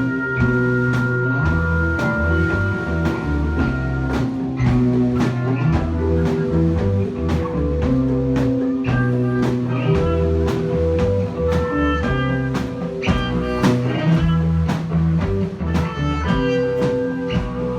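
Instrumental band music with no singing: electric guitar over a bass line and a steady drum kit beat, with a long held high note in the first few seconds.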